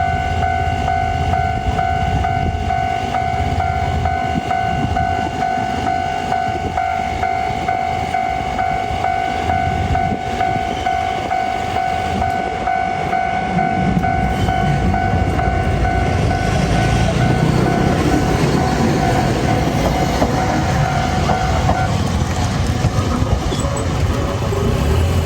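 Japanese railway level-crossing warning bell ringing steadily (the 'kan-kan' alarm). From about halfway, a Toden Arakawa Line tram rumbles over the crossing, its wheels clattering on the rails, loudest a few seconds before the end. The bell stops near the end.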